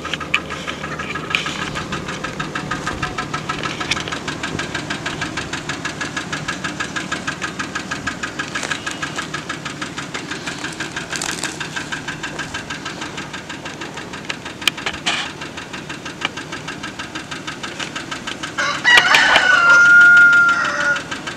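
Pickup truck engine idling with a fast, even knock, the noise the owner wants diagnosed. About two-thirds of the way through, a rooster crows loudly for about two seconds over it.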